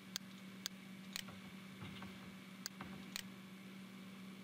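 Computer mouse clicks: about five short, sharp clicks, falling roughly in pairs half a second apart, over a faint steady low hum.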